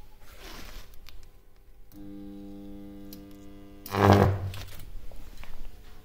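A microwave oven transformer in a resonant circuit with six microwave oven capacitors comes on about two seconds in with a steady mains hum. About two seconds later a loud high-voltage arc fires briefly, crackling for about half a second, and the hum dies away after it.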